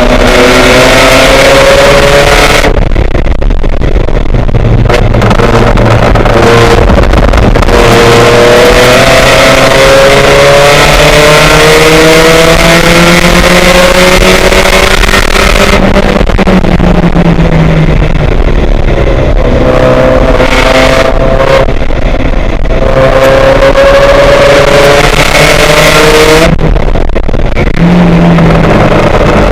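Loud race car engine heard on board, climbing in pitch under hard acceleration and breaking off sharply at each upshift every few seconds. About halfway through it drops in pitch while slowing, then pulls up through the gears again.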